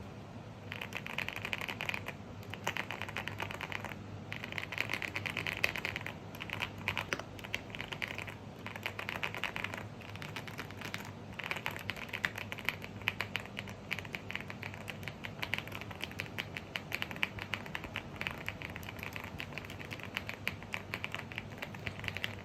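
Typing on a Rainy75 75% mechanical keyboard: fast runs of clacky keystrokes with short pauses between them, starting about a second in.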